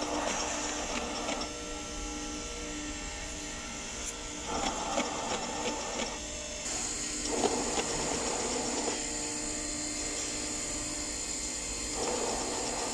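Friction feeder machine running with a steady motor and roller hum. Over it come about four short stretches of paper rasping and rustling as kraft envelopes are pulled off the stack and slide out onto the conveyor belt, with a few clicks.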